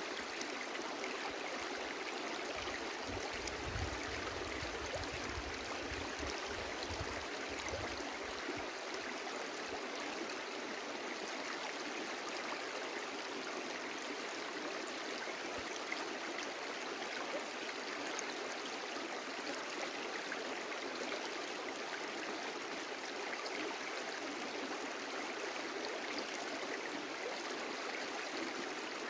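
Brook running steadily: a continuous, even rush of flowing water.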